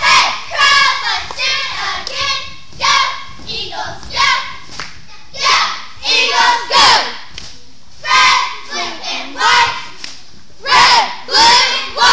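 A squad of young cheerleaders shouting a cheer together in short, rhythmic phrases with brief pauses between them.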